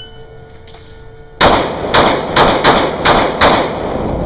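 A handgun fired in a rapid string, about seven shots in two seconds, starting about a second and a half in. Each shot echoes off the walls of the indoor range.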